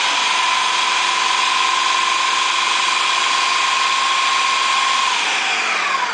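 Countertop blender motor running steadily at high speed, chopping whole cranberries, orange pieces with peel, and sugar into a coarse relish. About five seconds in it is switched off and the motor winds down with a falling pitch.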